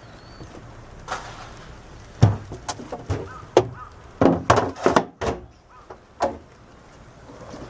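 A run of irregular knocks and thumps from things being handled on a boat's deck, clustered in the middle with a gap of near quiet just after it.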